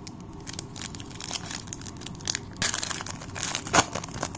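A foil trading-card pack from a Panini Legacy football box being torn open and its wrapper crinkled: small crackles throughout, with louder rustling about two and a half seconds in and the sharpest crackle near the end.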